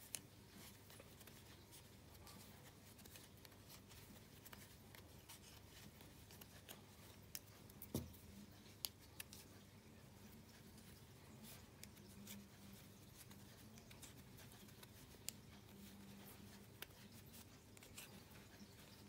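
Faint scattered clicks and soft rustling of wooden knitting needles working fluffy yarn, over a faint low hum, with a sharper knock about eight seconds in.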